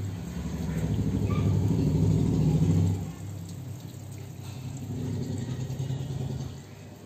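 A motor engine running steadily, louder for the first three seconds and then quieter.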